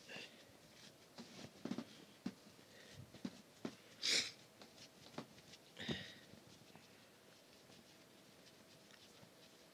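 Close-up handling noise as a sock is worked onto a foot one-handed: fabric rustling and scattered soft knocks and clicks against the phone's microphone, with one louder hissing rub about four seconds in. It settles to low background for the last few seconds.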